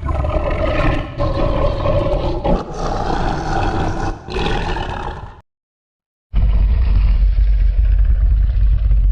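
Vocal imitation of a large creature's roar: one long rough roar lasting about five seconds, then, after a pause of about a second, a deeper, lower growl.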